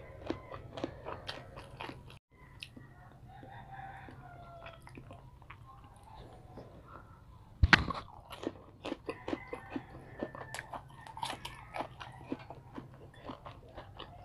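Close mouth sounds of a person chewing and biting Filipino street food (fish balls, kikiam, fried tofu), full of short wet clicks and smacks. A single sharper, louder knock comes just before the eight-second mark.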